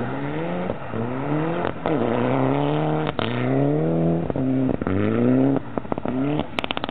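Turbocharged four-cylinder engine of a Mitsubishi Lancer Evolution rally car at full throttle on snow, the revs climbing and dropping sharply about six times as it shifts and powers through the slides. Short sharp cracks punctuate it, with a rapid string of them near the end.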